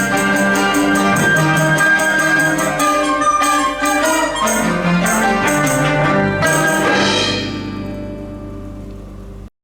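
Chinese chamber sextet of erhu, dizi, pipa, yangqin, zhongruan and cello playing the closing bars: fast repeated plucked and struck notes over held tones, then a final chord about seven seconds in that fades and cuts off suddenly near the end.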